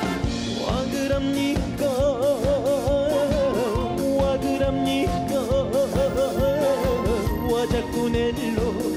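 Trot band playing an instrumental interlude: a held lead melody with a wide, regular vibrato over a steady drum beat.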